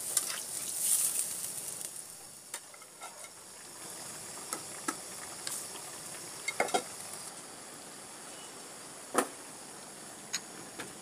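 A metal spatula scraping and stirring a hilsa curry in an iron kadai for the first second or two, then the curry sizzling and simmering steadily. Scattered clicks and knocks come through, the loudest a little after nine seconds.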